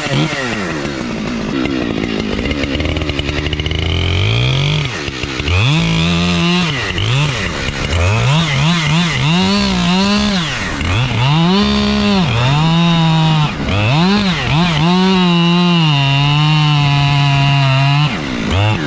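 Chainsaw cutting into a tree trunk, its engine pitch rising and falling again and again as it works through the cut, then holding steady for a couple of seconds before dropping off near the end.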